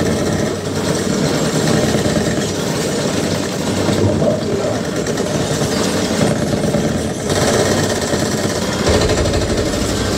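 Loud, continuous action-movie trailer sound design: dense effects with no speech, changing in character about nine seconds in.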